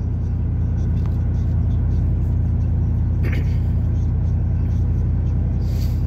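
Exhaust of a 4.8-liter V8 pickup, running through stock cats and a single Cherry Bomb glasspack split by a Y-pipe into dual pipes, giving a steady low rumble at an even speed, heard from inside the cab.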